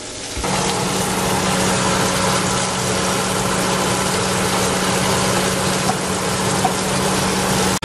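Beaten eggs sizzling steadily as they are poured into melted butter in a hot cast iron skillet, over a constant low hum.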